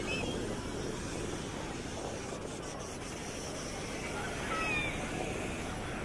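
Crowded beach ambience: a steady low rush of gentle surf and wind on the microphone, with faint, distant shouts of people in the water near the start and again about four to five seconds in.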